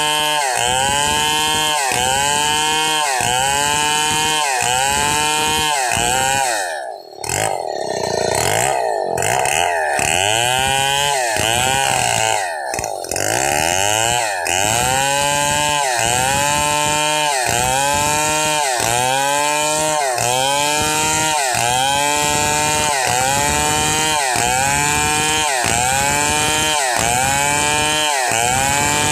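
Stihl chainsaw ripping lengthwise through a thick hardwood plank, the engine held at high revs under load. Its pitch rises and falls in a steady rhythm about once a second as the bar works through the cut. The running briefly falters about seven seconds in and again around twelve seconds in.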